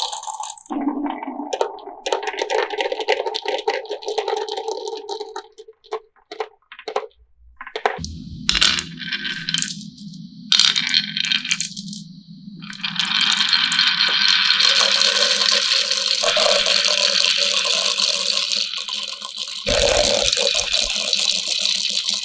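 Marbles rolling and clattering down a rain-gutter and wooden-rail marble run: a steady rolling tone with scattered clicks as they knock together. Partway through the clicks thin out, then a steady low rumble starts and a dense rushing clatter builds as many marbles pour through.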